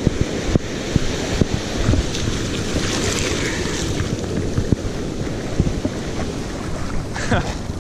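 Surf washing over the shallows, with wind buffeting the microphone. The hiss of the wash swells about three seconds in.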